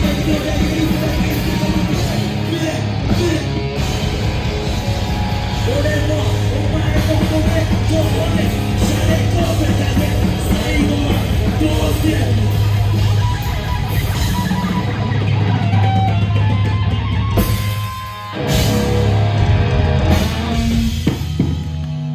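A live rock band playing loud, heavy music: drums, electric guitar and keyboards with a vocalist on the microphone. The music drops out briefly about eighteen seconds in, then the band comes back in.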